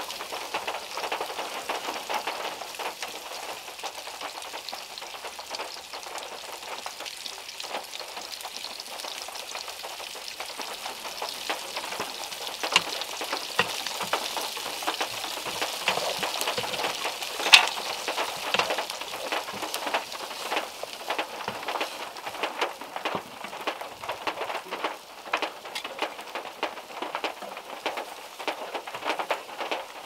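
Heavy rain falling on a small car's roof and windows, mixed with food sizzling in a frying pan on a portable gas stove. Scattered clicks and taps come from a knife on a wooden cutting board, and one sharp tap stands out a little past the middle.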